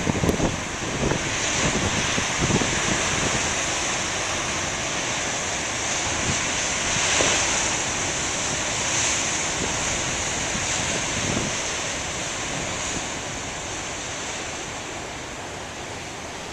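Ocean surf: waves breaking and washing ashore in a steady rush that swells about seven seconds in and eases toward the end. Wind thumps on the microphone in the first few seconds.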